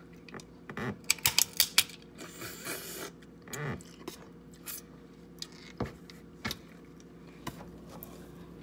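King crab leg shells being cracked open by hand: a quick run of about six loud, sharp cracks about a second in, a brief rustle, then scattered softer clicks as the shell pieces are picked apart.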